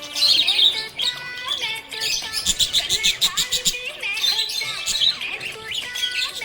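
Budgerigars chirping and warbling, with a quick run of rapid repeated chirps in the middle, over background music.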